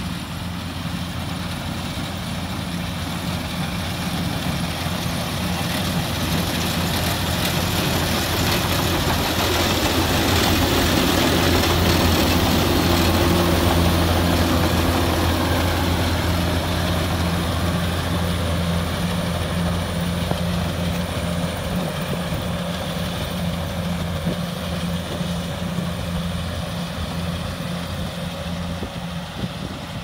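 Kubota DC-70 combine harvester's diesel engine and threshing gear running steadily as it cuts rice, with a steady low hum under a broad mechanical rush. It grows louder as the machine passes close about halfway through, then fades as it moves away.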